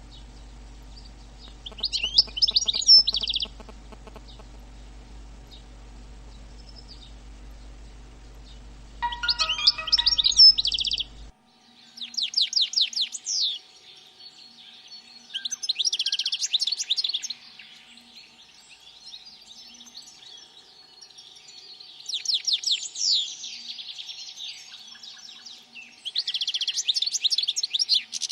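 Small songbird singing, short fast trilled phrases of one to two seconds repeated every few seconds. A low steady hum underneath stops abruptly about a third of the way in.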